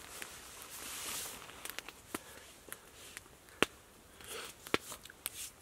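Campfire crackling, with scattered sharp pops at irregular moments and a soft rustle about a second in.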